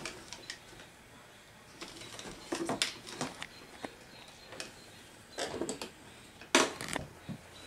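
Scattered light clicks and rustles, like small handling noises close to the microphone, in a few short clusters about two and a half, five and a half and six and a half seconds in.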